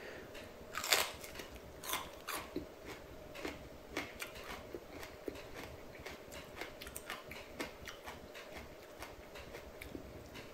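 A person chewing a mouthful of raw green chili pepper: soft, irregular crunches and mouth clicks, the loudest about a second in.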